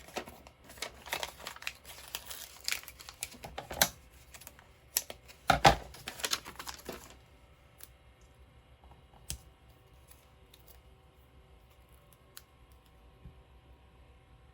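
Paper and craft pieces handled on a desk: quick small clicks, taps and rustles, with one louder thump about five and a half seconds in. After about seven seconds the handling stops and only faint room noise remains.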